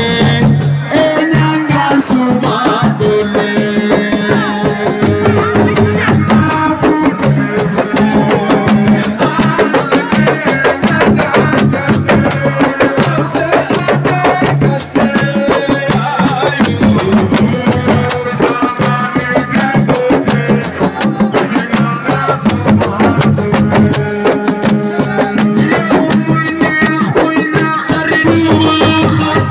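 Assiko band playing live: dense, rapid drumming and percussion with a pitched melody and bass line over it.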